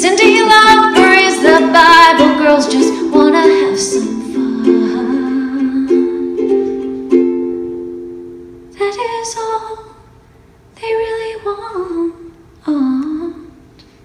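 Solo ukulele played live: strummed chords ring out and slowly die away over the first eight seconds or so. Then come three short, soft phrases of a woman singing over light ukulele notes.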